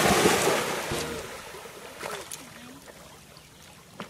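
A yellow Labrador retriever's splash-down in a pond, loud at first and dying away over about a second and a half, then quieter sloshing water as it swims.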